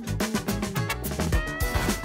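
Upbeat background music with a steady drum beat and a moving bass line; about a second and a half in, a high tone slides up and holds.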